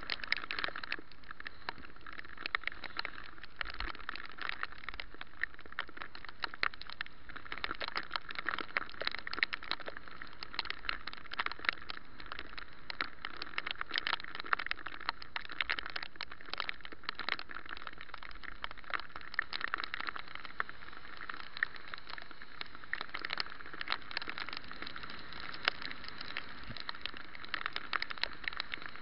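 Bicycle riding through rain on wet pavement: a steady hiss of rain and wet tyres, with many small irregular ticks scattered throughout.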